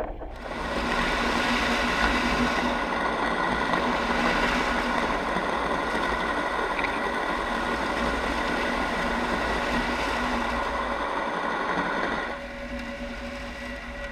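Steady mechanical running noise with a hum, such as a motor, starting abruptly and dropping in level about 12 seconds in.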